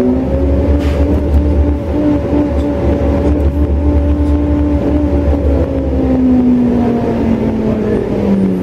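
Interior running noise of a New Flyer C40LF natural-gas transit bus under way, heard from a passenger seat in the cabin: a deep engine rumble with a drivetrain whine. The whine climbs a little in the first second, holds steady, then drops in pitch over the last couple of seconds as the bus slows.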